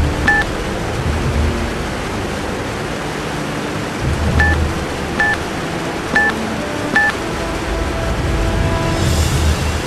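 Electronic button beeps from a cartoon time bomb's timer as its button is pressed to set the countdown: five short beeps, one right at the start and four more about a second apart from about four and a half seconds in. A low droning rumble runs underneath, and a hiss comes in near the end.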